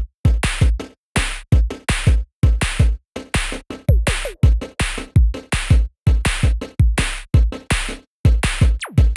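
Electronic background music built on a drum-machine beat: punchy bass kicks and sharp snare hits repeating several times a second, with a brief synth sweep now and then.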